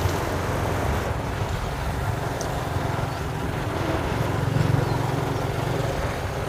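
Motorcycle cruising at a steady speed along a paved road: engine and road noise as one even, low rumble.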